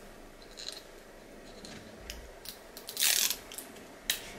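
Small plastic clicks from a lipstick and its packaging being handled and worked open by hand, with a louder short rustle about three seconds in.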